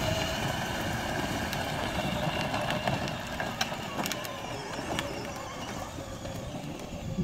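12-volt Kid Trax ride-on police car driving off: a steady whine from its electric drive motors and gears with tyre noise, growing fainter as it moves away, with a few sharp clicks along the way.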